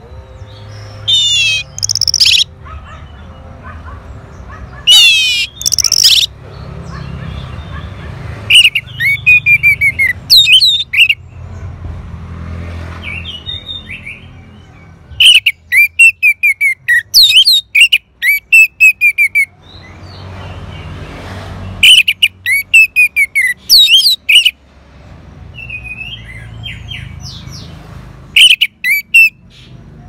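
Orange-headed thrush singing in loud bursts of rapid, sharply sweeping whistled notes, with softer warbled phrases in the pauses between them. A low rumble runs underneath.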